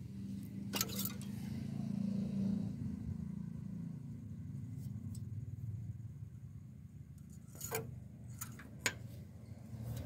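Low, steady engine hum, with a sharp metallic click about a second in and a few more clicks and scrapes near the end as the tractor's oil dipstick is handled.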